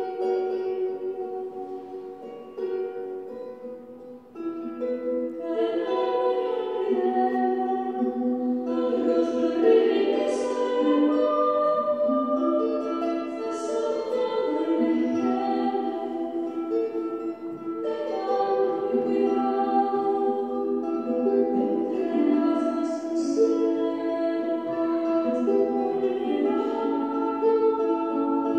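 Choral music: voices singing slow, held chords. It fades low about four seconds in, then swells again and carries on at a steady level.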